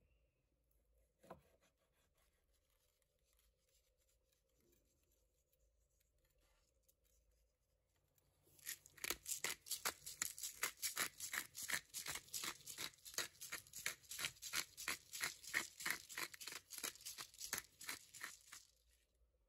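A pepper mill being twisted to grind black pepper: a fast, even run of gritty grating rasps, about three or four a second, starting about nine seconds in and stopping shortly before the end.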